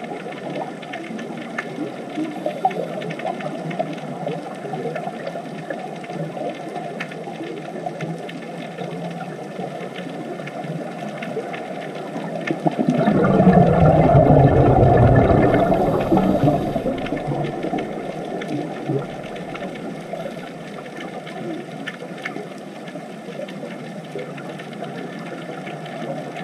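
Underwater ambience: a steady crackling hiss with scattered clicks. About halfway through, a louder rumbling swell of noise rises and fades over some four seconds.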